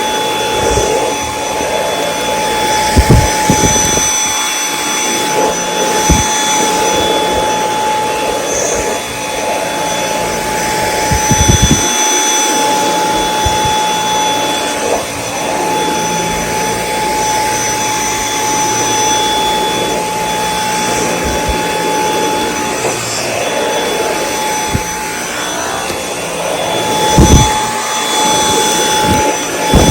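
Dyson V8 Extra cordless vacuum cleaner running steadily, a rushing noise with a high steady whine, broken by a few short knocks, about four over the stretch.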